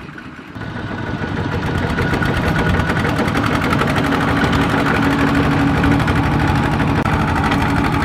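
Two-wheel tractor's single-cylinder diesel engine running steadily under load as it drags a trailer of rice sacks through deep mud. It gets louder from about half a second in, as the tractor comes close.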